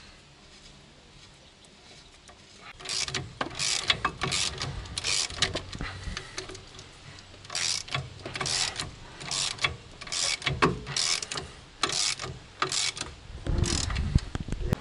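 Hand ratchet clicking in short spells, starting about three seconds in, as new greased bolts are run in to fix a car's front strut to the steering knuckle. A low bump near the end.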